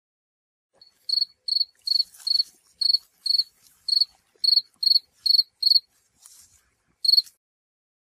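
Cricket chirping: a dozen short, high chirps about two a second, starting about a second in, with a pause of about a second before a last chirp near the end.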